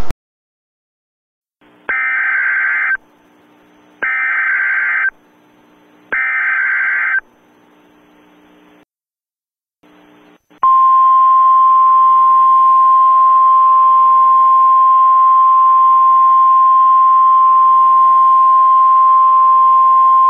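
Emergency Alert System test signal: three one-second bursts of digital SAME header data, about a second apart. After a short pause comes a loud, steady attention tone near 1 kHz, held for about ten seconds.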